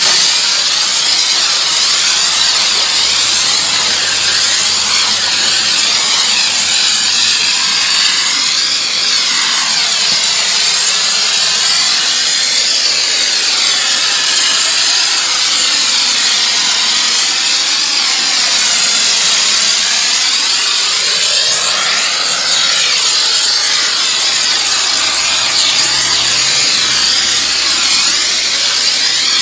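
Pressure washer jet spraying water onto a car's bodywork: a steady loud hiss whose tone shifts in slow sweeps as the spray moves.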